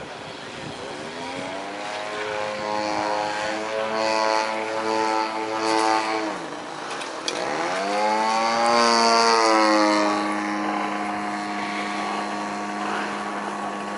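Engine and propeller of a radio-controlled aerobatic model airplane in flight. Its pitch climbs and holds, dips sharply and comes back up about six to eight seconds in, is loudest around nine seconds, then settles to a steady pitch.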